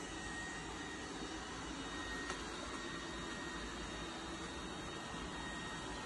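Tikom L9000 robot vacuum running steadily across a hardwood floor: an even motor and suction hiss with a faint high whine, and a brief click about two seconds in.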